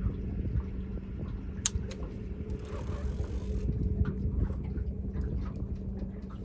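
Boat engine running steadily at idle, a low hum over rumble, with a sharp click about one and a half seconds in.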